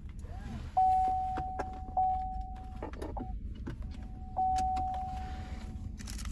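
A chime of one steady pitch dings three times, each note starting sharply and ringing on as it fades, with faint clicks between.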